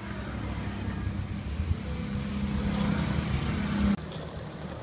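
Road traffic: a motor vehicle's engine hum growing steadily louder as it approaches, then cutting off suddenly about four seconds in, leaving fainter street background.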